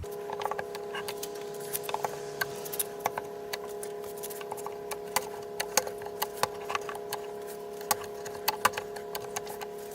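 Scattered light clicks and taps, a few a second at uneven intervals, from clamps and tools being handled on a guitar repair bench, over a steady hum that starts abruptly at the beginning.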